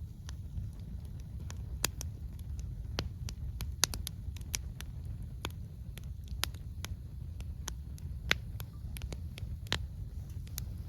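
Wood campfire crackling: irregular sharp pops and snaps, the loudest about four and eight seconds in, over a low steady rumble.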